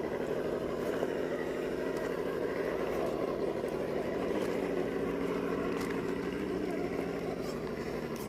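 Scale RC rock crawler's electric motor and geared drivetrain running steadily as it crawls over an obstacle. It gives a continuous mechanical hum.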